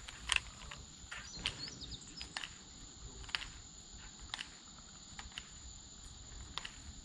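A steady high-pitched insect drone with scattered sharp clicks from a baitcasting reel being cranked and handled during a lure retrieve. A few faint chirps come about a second and a half in.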